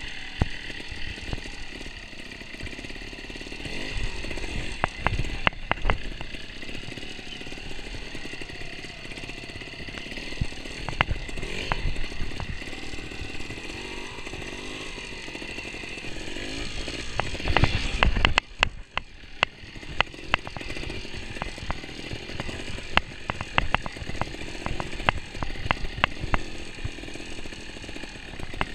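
Trials motorcycle engine running at low revs with throttle blips as the bike picks its way over roots, logs and leaves, with frequent knocks and clatter from the bike. About eighteen seconds in comes a loud cluster of knocks, after which the sound briefly drops away before the engine picks up again.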